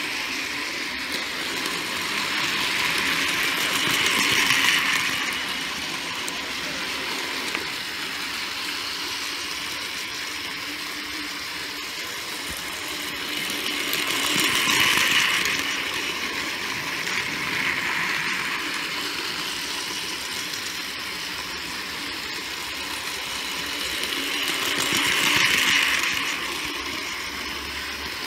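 Battery-powered DX Train toy trains running on plastic track: a steady whir of small electric motors and wheels, growing louder three times, about ten seconds apart, as a train passes close by.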